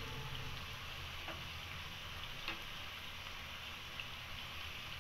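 Jalebi batter spirals frying in hot oil in a pan: a steady sizzle of bubbling oil, with a few light clicks of a metal slotted spoon against the pan as they are turned over.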